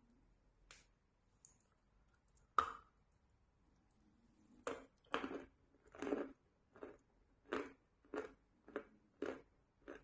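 Chalk eaten close up: one sharp crunching bite into a stick of dry chalk dipped in wet chalk paste about two and a half seconds in, then crunchy chewing, about two crunches a second, from about halfway on.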